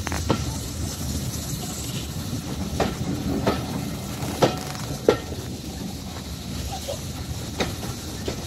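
Heritage railway train heard from on board while moving slowly: a steady low rumble with irregular sharp clunks and clicks from the wheels and running gear, the loudest two about halfway through.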